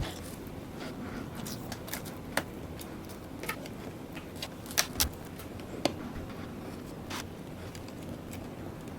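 Scattered light clicks and taps of hands working on a new laptop battery, removing its stickers, over a steady low hum.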